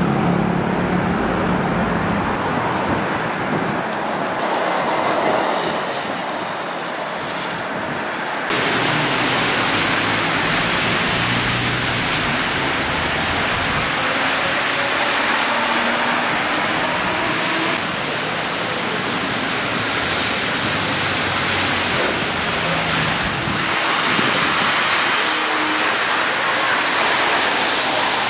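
Street traffic: cars and double-deck buses passing on a city road. About eight seconds in it changes abruptly to a steady hiss of tyres on a rain-soaked road.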